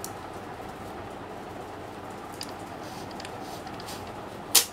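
Faint plastic clicks from an HP LaserJet 1020 fuser assembly being handled and turned by hand, over a steady hiss, with one sharp knock near the end.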